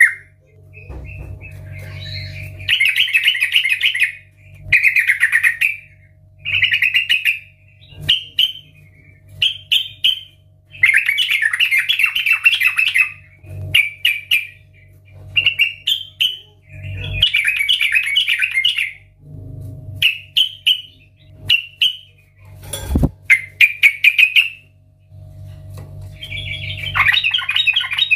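Yellow-vented bulbul singing loudly: short bubbly, chattering phrases repeated every second or two with brief pauses between. There is a single sharp knock near the end.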